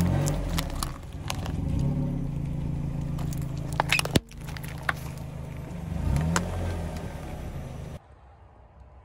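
Car engine running slowly under light throttle, rising in pitch briefly twice, as a tyre rolls over plastic Play-Doh tubs, with scattered sharp cracks and clicks of the plastic tubs being crushed. The engine sound cuts off suddenly about a second before the end, leaving only faint sound.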